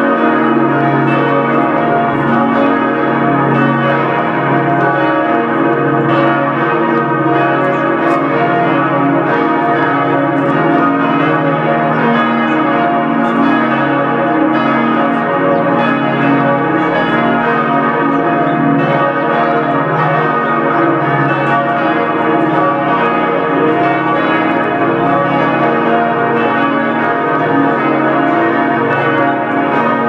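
Full peal of several church bells ringing together, their tones overlapping in a continuous, unbroken peal.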